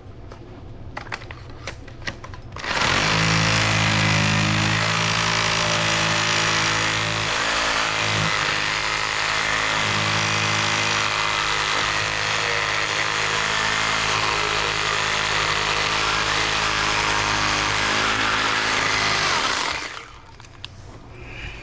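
An electric power tool starts about three seconds in, runs steadily at an even speed for about seventeen seconds, then stops.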